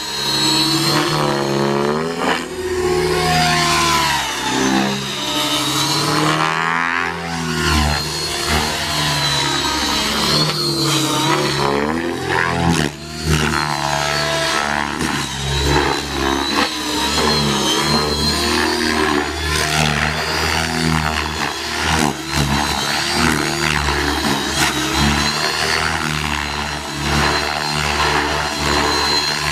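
Align T-Rex 600E electric RC helicopter flying aerobatics: its rotor noise and high motor whine keep rising and falling in pitch as it swoops and passes overhead.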